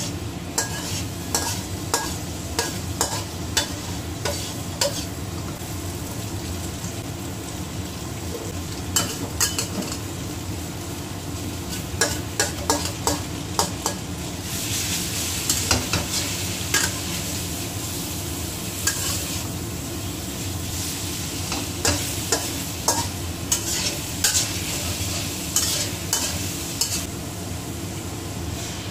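Metal spatula scraping and clacking against a wok while stir-frying tofu, shrimp and sliced mushrooms, with the food sizzling in hot oil. The sizzle grows louder about halfway through, over a steady low hum.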